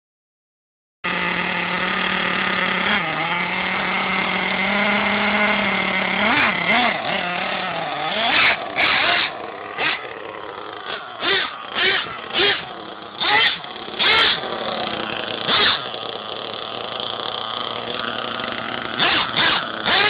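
Small two-stroke nitro glow engine of an Ansmann Kryptonite RC truggy starting about a second in and idling steadily, its pitch wavering after a few seconds, then revved in short throttle blips roughly once a second. The engine is making a strange noise that its owner cannot place.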